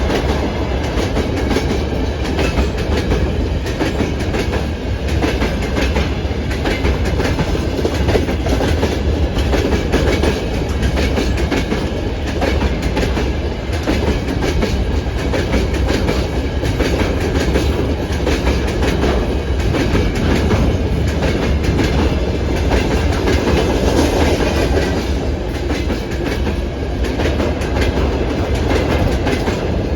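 Freight train wagons rolling past, their wheels clattering over the rail joints in a steady clickety-clack with a continuous rumble underneath.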